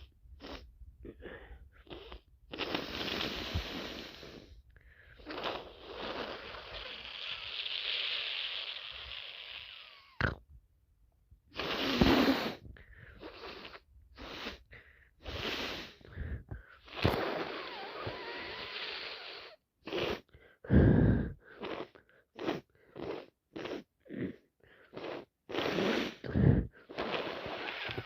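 A person with a cold and allergies sniffling and snorting through a stuffed-up nose, with a few long, hissy stretches of forced nose breathing. Two louder bursts come about halfway through and again about three-quarters of the way in, and quick sniffs follow one another near the end.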